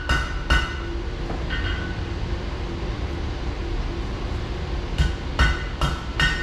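Blacksmith's hammer striking hot iron on an anvil, each blow ringing with a bright metallic tone. One blow, a light tap about a second and a half in, a pause of about three seconds, then four blows about half a second apart near the end, over a steady low hum.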